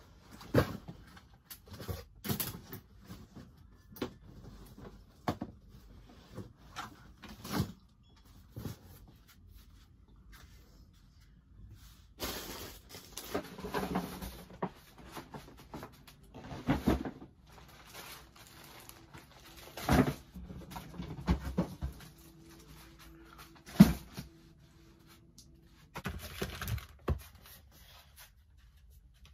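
Bags, boxes and other household things being handled and moved around while tidying: irregular knocks and bumps with bursts of rustling. One sharp knock about two-thirds of the way through is the loudest.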